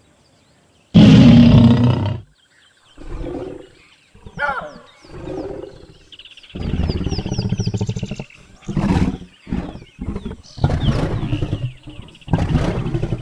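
Lion roaring: one loud, long roar about a second in, then a run of shorter roars and grunts. Birds chirp faintly in the background.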